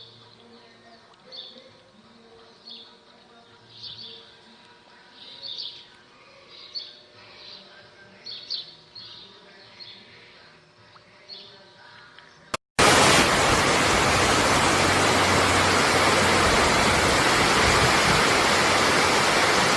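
A bird chirping in short repeated calls, about one every second or so, over quiet background. Then a sudden cut to the loud, steady rush of fast-flowing water.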